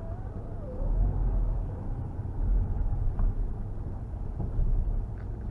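Front-wheel-drive car driving slowly down an icy track, heard from inside the cabin: a low engine and tyre rumble that swells about a second in and eases off around three seconds.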